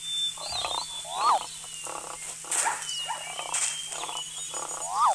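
Wild animal calls mixed together: rough, pulsing growls and roars, with a short rising-and-falling call that comes twice, about a second in and again at the end, louder than the rest.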